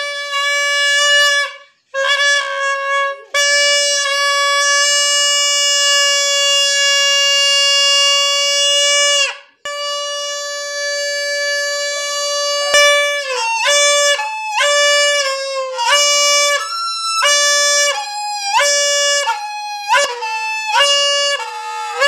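Plastic toy trumpet horn blown by air escaping from a deflating balloon, sounding a loud steady reedy note with two brief breaks. From about 13 seconds in, the note keeps jumping between a low and a higher pitch about twice a second, with a hand cupped over the horn's bell.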